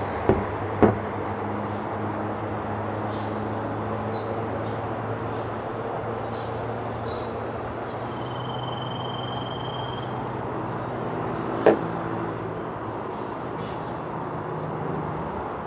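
Steady outdoor background noise with a low hum and faint high chirps. Just after the start, a glass bottle knocks twice on the table as it is set down, and one more sharp knock comes later.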